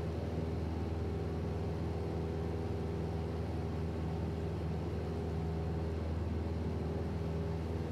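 A steady low hum of several even tones stacked over a faint hiss, unchanging throughout.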